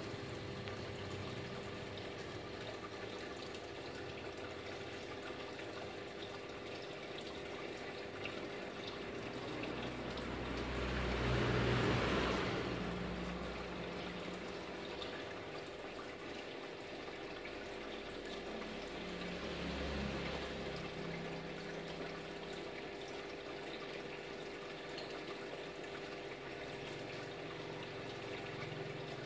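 Water trickling and circulating in a goldfish aquarium, a steady watery hiss over a steady low hum; it swells louder for a few seconds around the middle and briefly again later.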